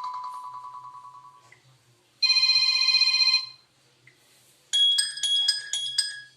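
Preloaded Sony Xperia 10 alert tones played one after another through the phone's speaker. A pulsing tone fades out in the first second and a half, a steady electronic tone lasts about a second from just past two seconds in, and near the end comes a run of about six quick chime notes.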